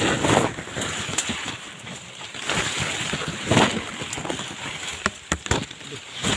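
Rustling and swishing of brush and undergrowth as someone pushes through it on foot, with a few sharp snaps or cracks about five seconds in.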